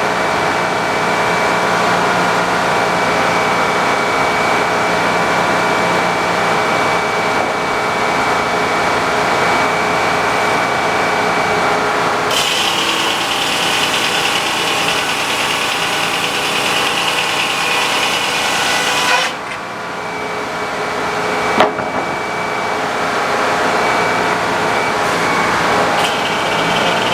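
Sawmill engine running steadily. About halfway through, a higher hissing cutting sound joins it as the saw goes through the log. The cutting stops abruptly about two-thirds in, with a sharp click a couple of seconds later, and starts again near the end.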